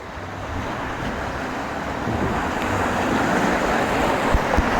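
Rushing water of a water-park river rapids ride, growing steadily louder, with wind rumbling on the microphone.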